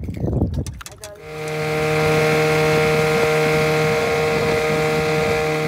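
Two-stroke 7.5 hp Mercury outboard motor running at a steady throttle with the boat under way, coming in loud about a second in after a stretch of wind noise and clicks.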